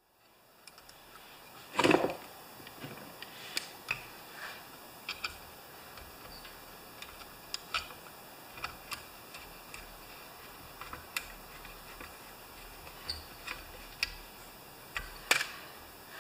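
Scattered light clicks and taps of a screwdriver and small metal parts on a chainsaw engine as a wire clamp is fitted, with a louder knock about two seconds in and another about a second before the end.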